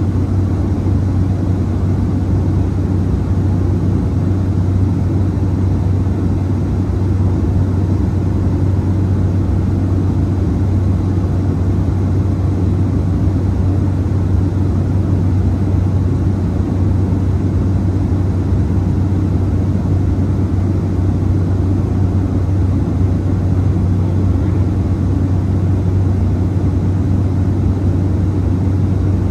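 Cabin noise of a Cessna 208B Grand Caravan in flight: its single Pratt & Whitney PT6A turboprop engine and propeller make a loud, steady low drone with a strong deep hum.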